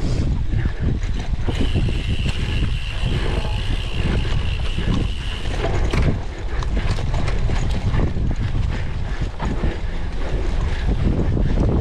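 Wind rumbling on the microphone over the rattle and clatter of a cyclocross bike ridden hard over rough ground. A steady high tone runs from about a second and a half in to about six seconds.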